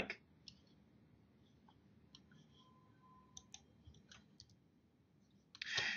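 Faint computer mouse clicks: a few scattered single clicks, then a short run of several about three and a half to four and a half seconds in.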